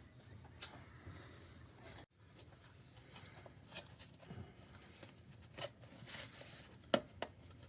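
Scattered light clicks and knocks over faint background noise, the sharpest about seven seconds in, with a sudden brief drop to silence about two seconds in.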